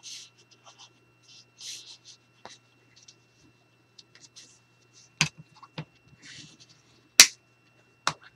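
Hands handling and rubbing a sheet of very thick craft paper on a desk: soft scraping and rustling, then four sharp clicks or taps in the second half, the loudest a little past seven seconds.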